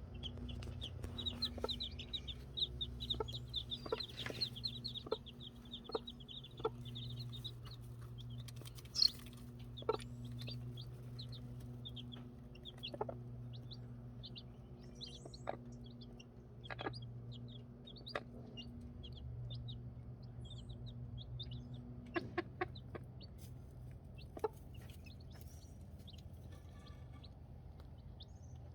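Baby chicks peeping in quick short chirps, thick in the first few seconds and sparser after. Occasional sharp clicks and a steady low hum run underneath.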